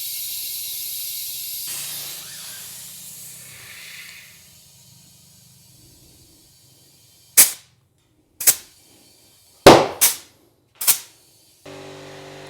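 Air hissing into a 120/70-12 front motorcycle tire as it is inflated, fading out, then about five sharp, loud pops as the tire bead snaps up onto the rim and seats. A steady hum comes in near the end.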